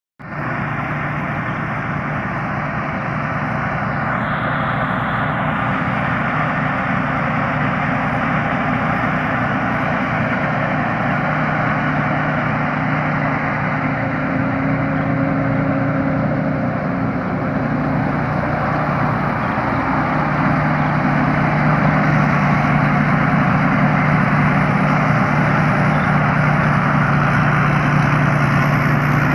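Thai Seng Yont rice combine harvester's engine running steadily at working speed while harvesting, growing a little louder about twenty seconds in.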